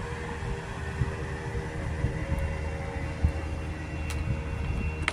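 Distant motorboat engine droning steadily, with wind rumbling on the microphone. A couple of light knocks near the end, footsteps on wooden boards.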